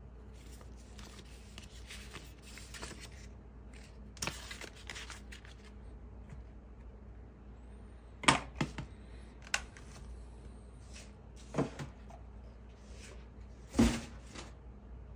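Paper leaflets and manuals rustling as they are handled, followed by a few sharp taps and knocks as things are set down on a wooden tabletop. The loudest is a single thump near the end.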